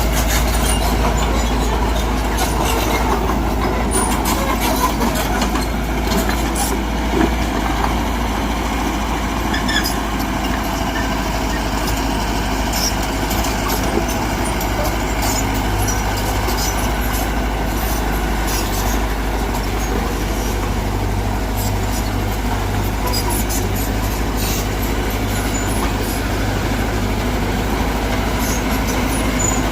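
Mitsubishi BD2G crawler bulldozer's diesel engine running steadily under load, with scattered short clanks and knocks.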